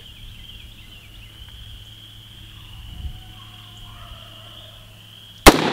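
A faint, steady, high-pitched drone in the background, then a single sharp AR-15 rifle shot near the end, the first of three aimed shots fired to confirm the iron-sight zero.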